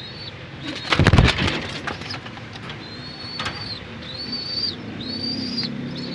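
Pigeon squabs giving a string of thin, high begging peeps, each about half a second long, with a loud rustling burst about a second in and low pigeon cooing near the end.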